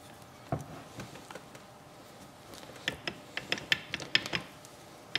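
Steel transmission gears and shafts of a Yamaha YZ125 gearbox clicking and clinking against each other and the aluminium crankcase as the gear clusters are worked into the case half. There is one soft knock about half a second in, then a quick run of sharp metallic clicks in the second half.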